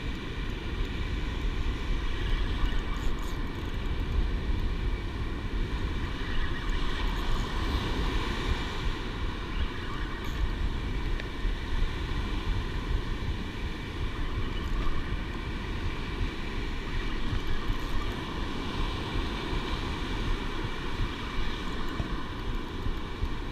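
Wind buffeting the camera microphone in a steady low rumble, with breaking surf under it and a faint steady thin whine above.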